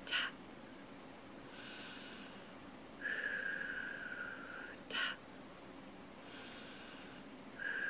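A woman's slow, deep mindful breathing: a soft hissing in-breath, then a longer out-breath with a faint steady whistle, as if through pursed lips. Each cycle ends in a brief sharp tap-like sound, heard at the start and again about five seconds in.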